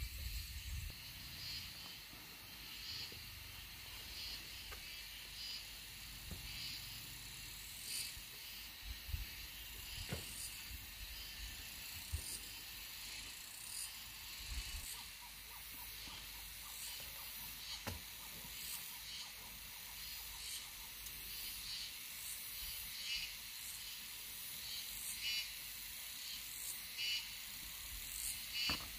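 Insects chirping steadily in a high, regular pulse about once a second, with scattered short knocks and scrapes from a hand hoe digging in soil.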